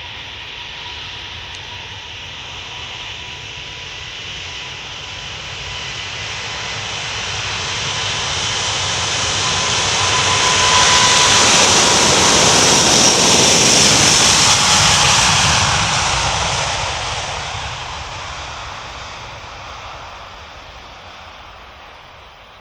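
Airbus A350-900's Rolls-Royce Trent XWB turbofan jet engines passing by. The sound swells from a distant rumble with a thin steady whine to a loud peak about halfway through, then fades away.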